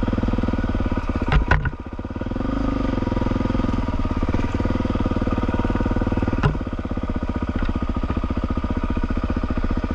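Suzuki DR650 SE single-cylinder four-stroke engine running under way on a dirt trail, with steady firing pulses. Its note drops briefly about two seconds in, as if the throttle is eased, then picks up again. A few sharp knocks come through, two close together early on and one about halfway through.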